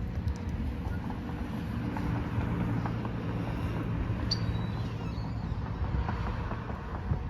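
Motor vehicle driving past close by, its steady low engine and road noise covering the distant outdoor warning sirens.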